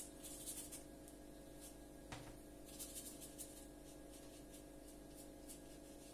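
Faint soft scratching of a watercolour brush over paper in a few short strokes, over a steady low hum, with one light tap about two seconds in.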